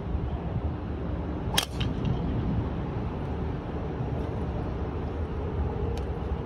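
Golf driver striking a ball off the tee: one sharp crack about one and a half seconds in, over a steady low rumble.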